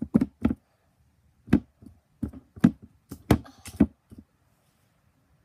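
Sticky slime smacking and popping between hands: about seven sharp, irregular smacks over the first four seconds, then they stop.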